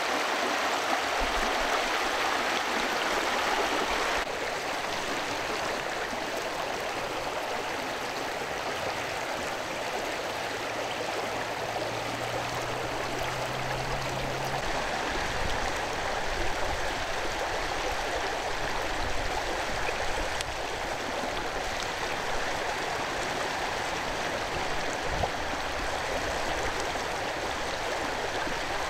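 Steady rush of a flowing river, as an even wash of water noise.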